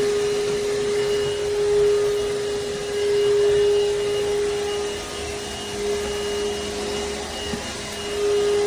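elezon A200 cordless stick vacuum running, a steady motor hum with a thin high whine over the rush of suction; the level swells and dips as it is worked back and forth.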